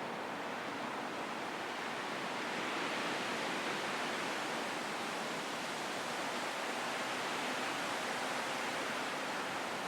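Wind blowing steadily, a constant rushing hiss that swells slightly about three seconds in and then holds.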